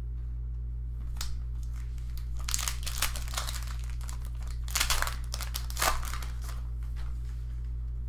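A foil trading-card pack wrapper crinkling and tearing as it is opened by hand, in irregular crackly bursts, loudest about five and six seconds in.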